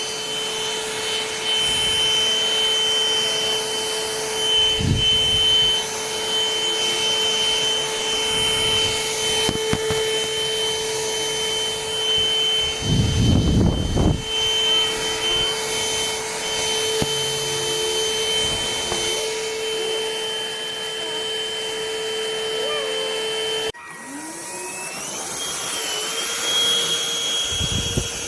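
Rowenta XPert 6.60 cordless stick vacuum running with a steady high whine, with a brief louder rush about halfway through. Near the end the motor cuts out abruptly, then starts again and spins back up with a rising whine.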